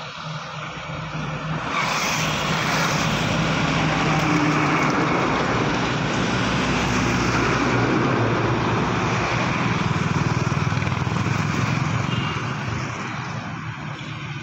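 Trucks passing close by on the road: engine drone and tyre noise that swells about two seconds in, holds steady, and eases off near the end.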